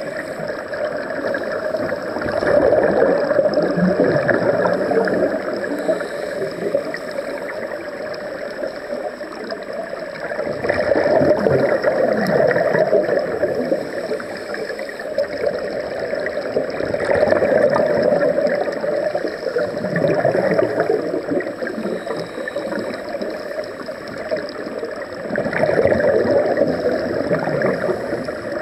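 Scuba regulator exhaust bubbles heard underwater: bubbling that swells louder every six to eight seconds as a diver breathes out and eases off in between.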